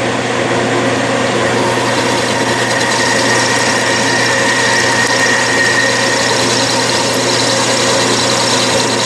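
Metal lathe running steadily, its motor and drive giving an even hum with several steady tones. A high-speed steel tool bit is turning a step on an aluminium bar, peeling off curly chips.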